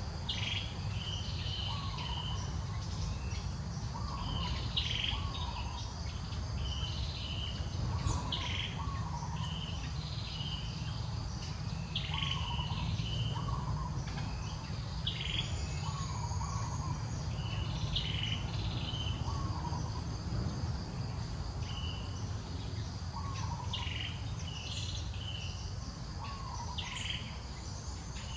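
Birds calling over and over in forest, short chirps and a repeated two-note call every second or two, over a steady high insect drone and a steady low rumble.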